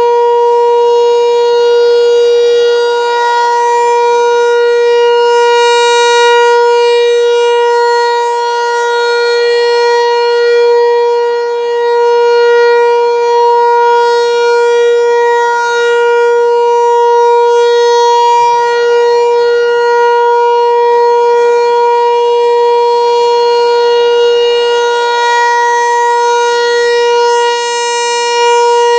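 American Signal Tempest T-128 outdoor warning siren sounding a loud, steady single tone during its monthly test, the loudness swelling and dipping slowly.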